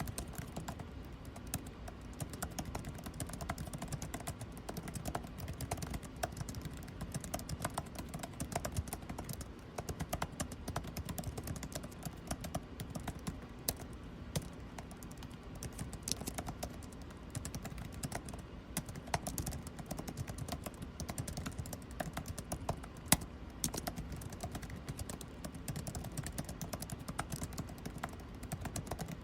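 Typing on a computer keyboard: a steady stream of irregular key clicks, with one sharper keystroke about two-thirds of the way through, over a low, even air-conditioning hum.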